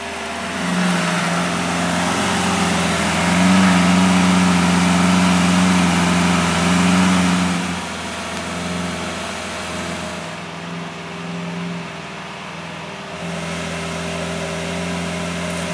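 Lamborghini Aventador's V12 engine running at a steady idle, with no revving. It is louder for the first half, then drops to a quieter idle about eight seconds in.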